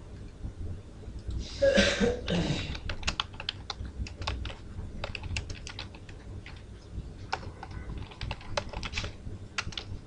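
Computer keyboard typing: runs of quick key clicks with short pauses between words. About two seconds in come two short muffled noises, louder than the keys.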